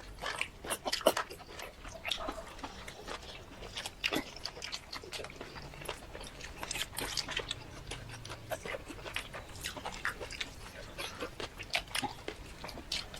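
Close-up eating sounds: a person chewing and biting spicy shrimp and rice, with irregular wet clicks and mouth smacks several times a second.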